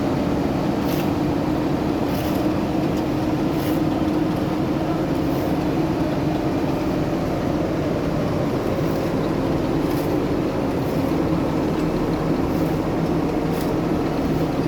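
Engine of heavy road-construction machinery running steadily at a constant pitch, with faint clicks now and then.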